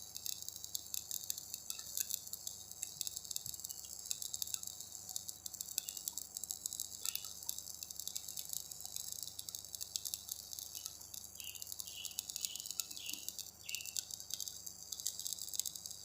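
Electric arc welding: a steady, dense crackle and sizzle from the welding arc as a vertical weld is run. The crackle stops abruptly at the very end as the arc is broken.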